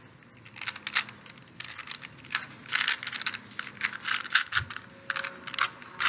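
Plastic 3x3x3 Rubik's Cube being turned quickly by hand, its layers clicking and clacking in quick irregular runs, several clicks a second.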